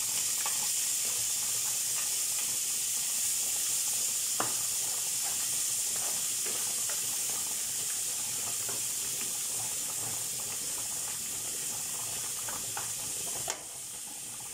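Frozen shredded carrot sizzling in hot oil in a frying pan, a steady high hiss from the ice meeting the oil, with a few light clicks. The sizzle falls off suddenly near the end.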